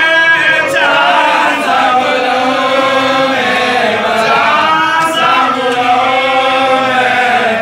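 Men's voices chanting a marsiya, a mourning elegy, in long, drawn-out melodic lines.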